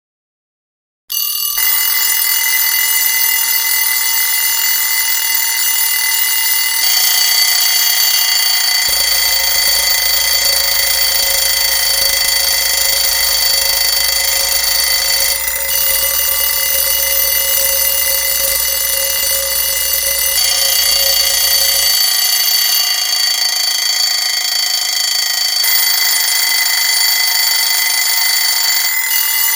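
Several alarm clocks go off about a second in, starting suddenly out of silence: the countdown timer has reached zero. They ring loudly and without pause, the overlapping alarms dropping in and out so the mix shifts every few seconds.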